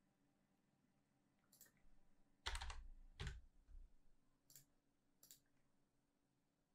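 Faint computer keyboard key presses and mouse clicks: a handful of separate clicks, the loudest pair about two and a half and three and a half seconds in. The clicks come as a price is typed into an order form and the order is sent.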